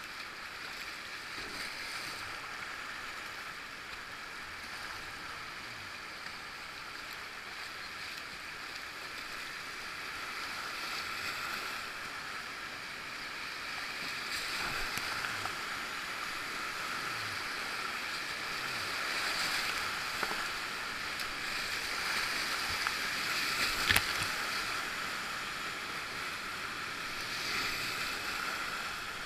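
Whitewater river rushing and splashing around a kayak, the water noise growing louder about halfway through. A single sharp knock comes late on.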